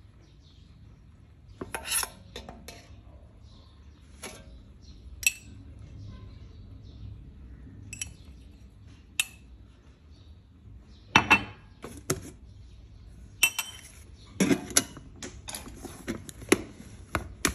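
Kitchenware being handled: scattered sharp clinks and knocks of spoon, cups and pot, a few at first and coming thick and fast in the second half.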